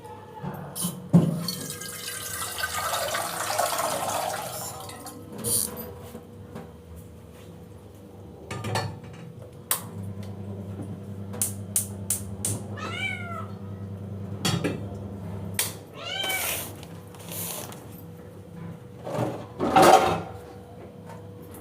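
Domestic cat meowing twice, short arching cries about halfway through and a few seconds later, between scattered clicks and knocks. The cat is begging for fish that is being boiled for it.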